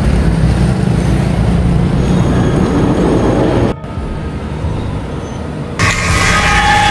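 Urban street traffic noise with a heavy low rumble. It breaks off sharply a little under four seconds in, runs quieter for about two seconds, then comes back louder.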